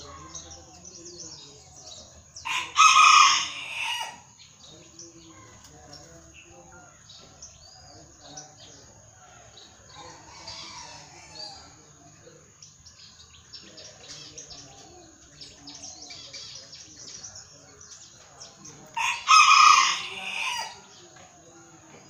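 A rooster crowing twice, about seventeen seconds apart, each crow lasting about a second and a half, over faint background bird calls.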